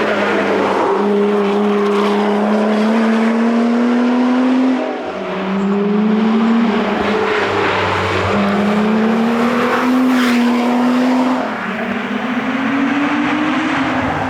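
Lotus Exige engine under hard acceleration on a rally stage, its note climbing in pitch through the gears, with a drop in pitch and loudness about five seconds in and again near the end as it shifts or lifts off.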